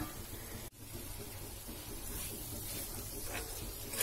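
Low hiss of liver in yogurt gravy cooking in a cast iron pan, with a few light scrapes of a metal spoon stirring it against the pan later on. The sound breaks off for an instant under a second in.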